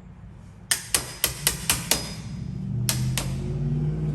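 Hammer striking a wood chisel, cutting into the wooden door or frame: a quick run of six sharp blows about four a second, a short pause, then two more. A low steady hum comes up underneath near the end.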